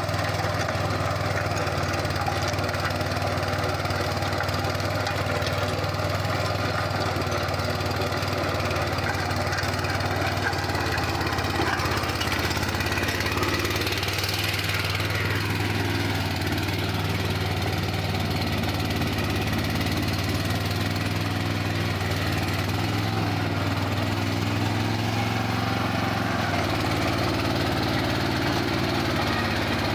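Swaraj Code mini tractor's single-cylinder diesel engine running steadily under load as it drives a rotary tiller through the soil.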